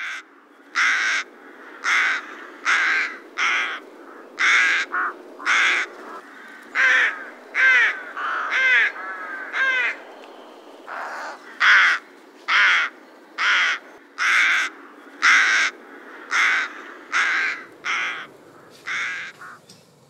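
A bird giving a long series of short, harsh calls, roughly one a second, with a brief break about halfway through.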